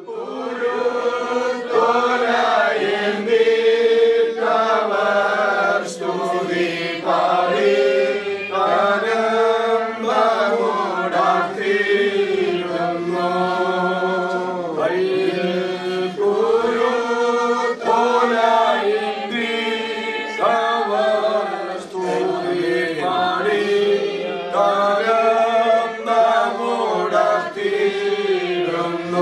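A group of voices singing a slow funeral hymn together, long held notes over a steady low drone.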